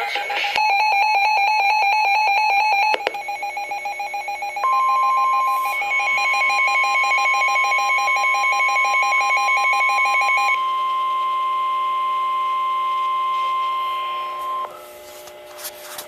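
Weather alert radio sounding a fast pulsing alarm beep. About four and a half seconds in, the NOAA Weather Radio's steady 1050 Hz warning alarm tone joins it and holds for about ten seconds; the beeping stops about ten seconds in. Together they signal a new warning being broadcast, here a high wind warning.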